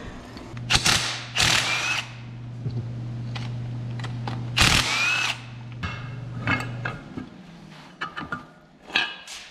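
Cordless drill driving a socket on a long extension, spinning out the bolts of a T5 transmission's tail housing with a steady motor hum and several louder spells as bolts break loose. The motor stops about seven seconds in, followed by a few light metal clunks as the aluminium housing is handled.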